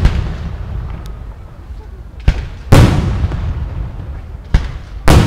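Aerial firework shells bursting: two pairs of bangs, each a sharp crack followed a moment later by a heavier boom that trails off in a long rumble, the first pair a little over two seconds in and the second pair near the end.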